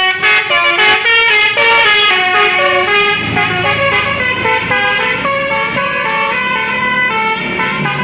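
Basuri telolet horn on a passing Mercedes-Benz coach playing a quick tune of loud stepping notes, each a fraction of a second long. The coach's engine rumble comes up underneath about three seconds in.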